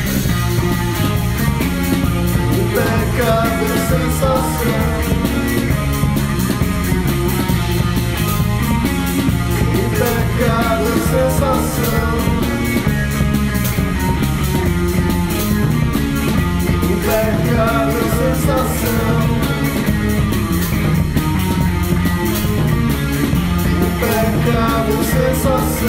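Rock band playing a song with male lead vocals over a steady drum beat.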